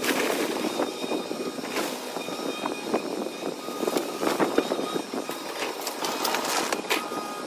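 Wood framing cracking and snapping as a CAT excavator tears into a house, over the machine's running engine. Sharp cracks stand out about two, four and seven seconds in.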